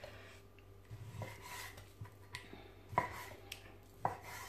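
Kitchen knife cutting raw chicken breast on a wooden chopping board: a series of light, irregular knocks as the blade comes down onto the board.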